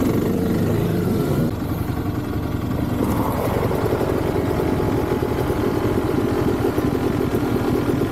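Kawasaki dirt bikes' single-cylinder engines, a little busier as the bike rolls to a stop, then idling with a steady, even pulse.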